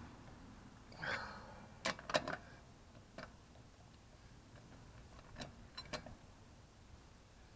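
A socket wrench clicking and clinking on the lug nuts of a car wheel as they are snugged down, a few sharp metallic clicks spread out, with a brief scrape about a second in.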